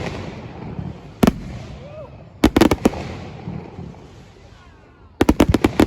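Fireworks bursting: a sharp double bang about a second in, a quick cluster of bangs around two and a half seconds in, and another rapid string of bangs near the end, with crowd voices between them.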